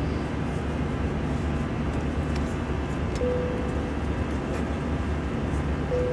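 Steady cabin noise of an Airbus A321 in flight, heard inside the cabin: an even rush of engine and airflow with a low rumble underneath. A short steady tone sounds about three seconds in and again near the end.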